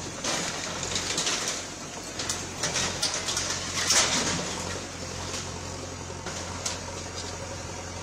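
JCB backhoe loader's diesel engine running under a steady hum while its bucket tears down a steel-pipe frame, with repeated clanks and crashes of metal, the loudest about four seconds in.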